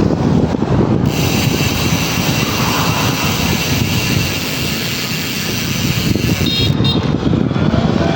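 PAPS Pro 3 bicycle rear hub's freehub buzzing steadily as the bike coasts, under heavy wind noise on the microphone and road rumble.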